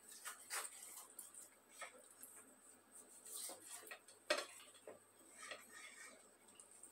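Faint, irregular clicks and taps of whole fish being handled and shifted about on a plate, with one sharper knock about four seconds in.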